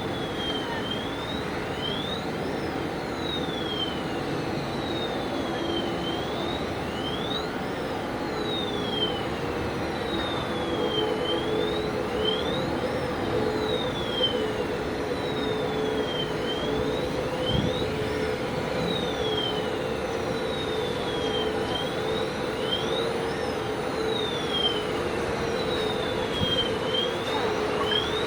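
Battery-powered rail transfer cart running with its warning siren sounding: a high electronic tone sliding down and back up in pitch about every two and a half seconds, over the steady hum of the drive.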